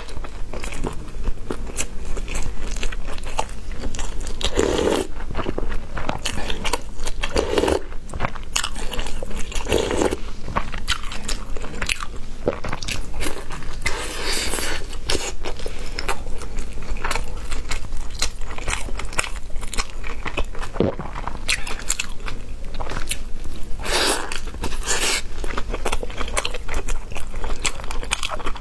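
Close-miked eating: a person bites and chews food, giving a steady run of wet mouth clicks and smacks, with a few louder bites along the way.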